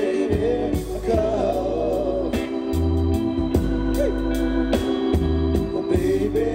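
Oldies soul band playing: held organ chords over bass and a drum beat, with male voices singing in places.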